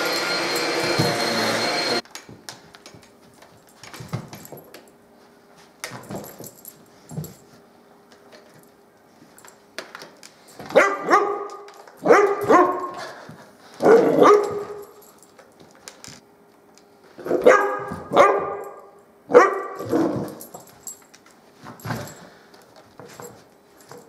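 Stick vacuum cleaner running, switching off about two seconds in. After that a dog barks repeatedly at it, a few scattered barks and then two loud runs of several barks in quick succession, with fainter ones near the end.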